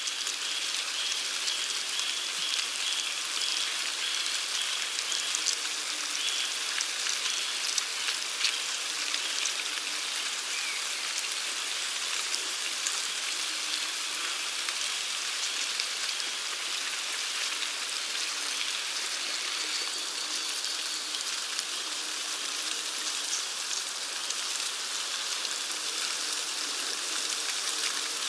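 Ants swarming over a pine-needle mound, heard close: a steady, dense, fine crackling rustle of countless tiny clicks, much like light rain.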